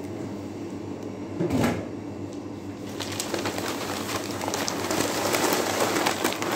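A thump about a second and a half in, then a large sheet of newspaper rustling and crinkling as it is shaken open and folded in the hands, growing louder toward the end, over a steady low hum.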